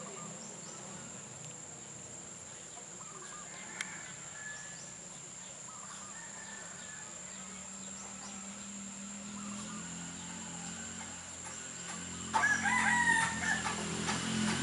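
A rooster crows about twelve seconds in, loud and clear over faint short bird chirps. A low droning hum grows louder toward the end.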